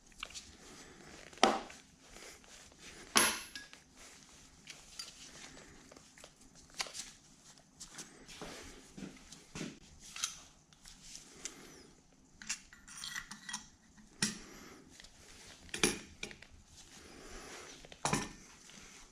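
Small steel machine parts clinking and knocking together in irregular handling sounds, with a few sharper knocks: a spacer and wavy washer being fitted onto a bearing shaft assembly from a Bridgeport mill head.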